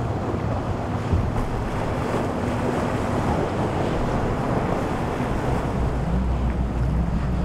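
Motorboat engines humming over rushing waves, with wind buffeting the microphone; an engine note grows stronger and rises in pitch over the last couple of seconds.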